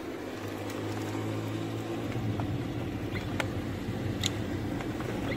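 A few faint clicks and rustles of plastic wiring connectors being handled at the car's interior fuse box, over a steady low hum.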